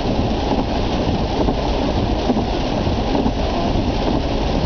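Heavy rain falling on a car's roof, heard inside the cabin: a loud, steady, dense crackle of drops with no let-up.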